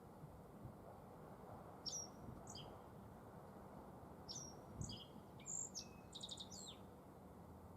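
Black-faced bunting singing: a short phrase of high, quick notes about two seconds in, then a longer, busier phrase of chirps and slurred notes in the second half.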